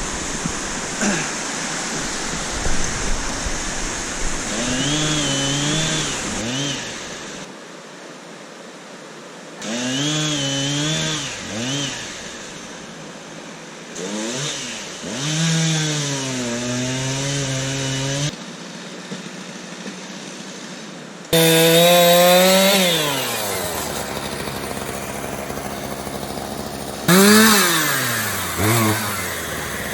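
Gas chainsaw revving up and falling back in repeated bursts, cutting fallen trees. The sound changes abruptly several times. The loudest stretch starts suddenly about 21 seconds in and slows from a high rev to a low idle.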